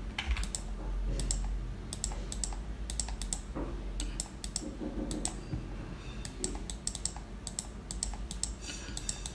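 Computer keyboard and mouse clicking in irregular taps, some close together, over a low steady hum.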